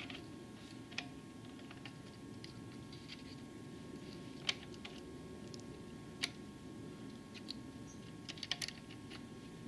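Scattered light metallic clicks and taps from a hand and small tool handling the newly fitted clutch on a small ATV engine, a few single ones, then a quick cluster near the end, over a faint steady hum.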